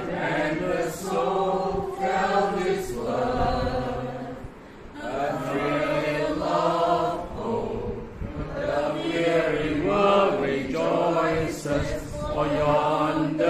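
A small group of men and women singing a song together, holding long notes, with a short break for breath about four and a half seconds in.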